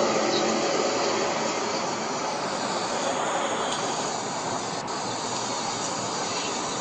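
A steady, loud rushing noise with no clear pitch, from one of the amateur recordings of the 'strange sounds' reported in the sky in 2012.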